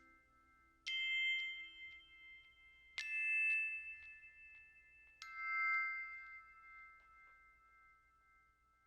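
Three bell-like chime strikes, each at a different pitch, about two seconds apart, each ringing on and slowly dying away.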